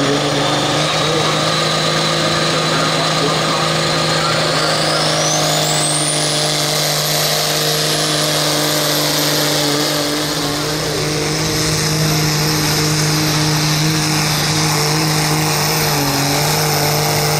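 Turbocharged diesel engine of a light limited super stock pulling tractor running hard at steady revs. A high turbocharger whistle climbs steeply a few seconds in, then holds at a high pitch over the engine note.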